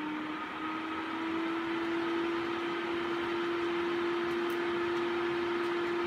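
AC Infinity Cloudline S8 8-inch inline duct fan running at speed 6: a steady rush of air with a steady hum, noisy though not loud. The hum rises slightly in pitch during the first second or so as the fan spins up to the new speed, then holds.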